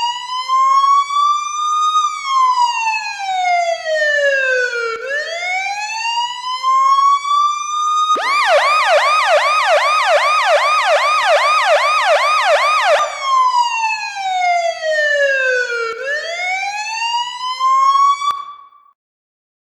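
Siren used as the Washington Capitals' 1980-1997 hockey goal signal, sounding a slow wail that rises and falls. About eight seconds in it switches to a fast yelp for about five seconds, then goes back to the slow wail and cuts off shortly before the end.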